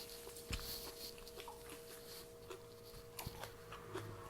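Faint eating sounds: soft chewing and a few small clicks, over a faint steady hum.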